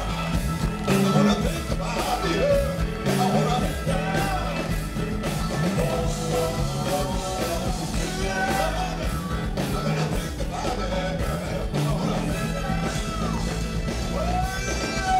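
A funk band playing live: an electric bass line stepping through low notes under drums, guitar and keyboards, with a singing voice over it.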